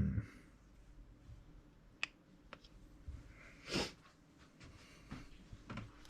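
Small clicks and knocks of a brushless RC car motor's metal end cap and can being pressed together and handled, with a thump at the start and a brief louder noise about four seconds in; the end cap is not quite closing onto the can.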